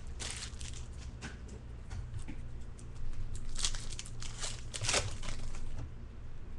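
Trading cards and a pack wrapper being handled close up: crinkling and rustling in several short bursts, the strongest around the middle and about five seconds in, over a low steady hum.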